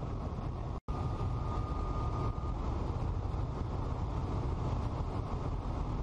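Steady cabin noise of a light aircraft in flight: engine and airflow noise, heaviest in the low end. The sound cuts out for an instant just under a second in, and a faint steady tone follows for about a second and a half.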